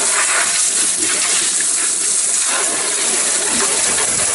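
Running water splashing into a plastic tub as gutted carp are rinsed out, a loud steady rush.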